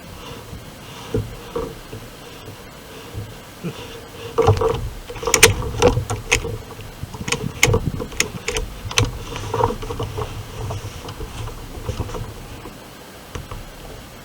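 A run of about nine sharp clicks and knocks over some four seconds, a little before the middle, over a low steady rumble.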